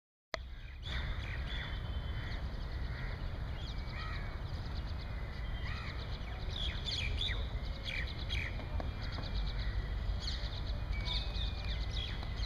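Many birds chirping and calling, short rising and falling notes scattered throughout, over a steady low rumble.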